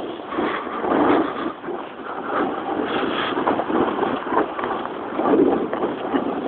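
Wind buffeting the camera microphone, with the scraping chatter of a snowboard sliding over snow. The noise swells and dips throughout.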